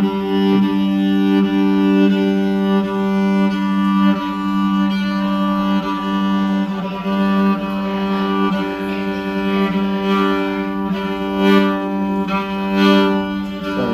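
Fiddle playing one long, steady low bowed note through the PA for a sound check.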